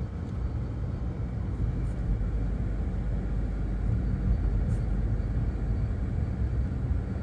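Car driving along a street, with a steady low rumble of engine and tyres.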